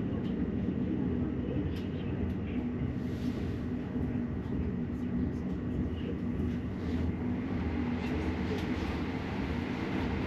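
Steady low rumble of a moving passenger train heard from inside the carriage, with a few faint clicks over it.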